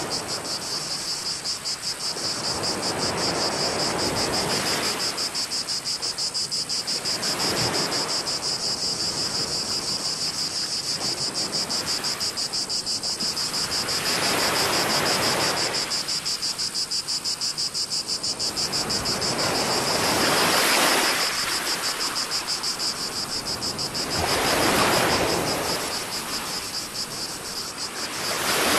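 A steady, high, fast-pulsing chorus of cicadas. Under it is a broad rushing wash that swells and fades every few seconds.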